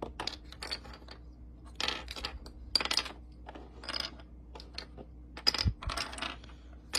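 Plastic Rubik's cube layers being twisted by hand: irregular quick plastic clicks and clacks, with a dull thump just past halfway.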